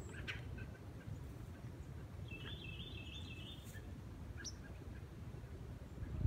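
Songbirds calling: a few short high chirps and one rapid, warbling phrase of about a second and a half near the middle, over a steady low rumble. A brief knock comes right at the end.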